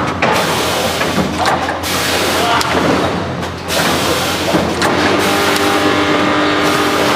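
Automatic food bagging machine running: a dense clatter of clicks and knocks, with a steady hum of several tones setting in about five seconds in.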